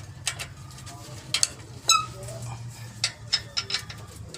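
Metal parts clinking and tapping in a series of sharp strikes, one of them ringing clearly about two seconds in, over a low steady hum.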